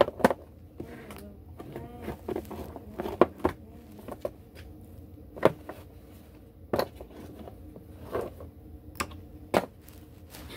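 Sharp clicks and knocks at irregular intervals, about nine in all, with the loudest right at the start and about five and a half seconds in, over a low steady hum: objects being handled and set down.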